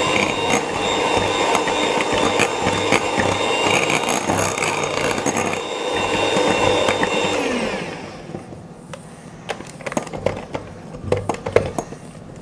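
Electric hand mixer running steadily, its twin beaters whisking flour into cake batter in a glass bowl. About eight seconds in it is switched off and its whine falls away, leaving scattered light clicks and taps.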